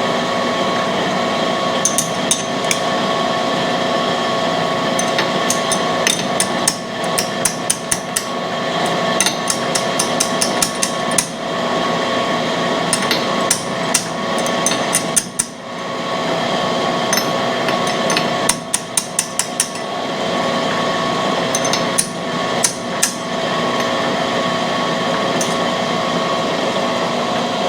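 Cam grinding machine running steadily with a whirring hum of several fixed tones, broken every few seconds by quick runs of sharp metallic clicks and taps as the camshaft's lobe separation is set on the workhead.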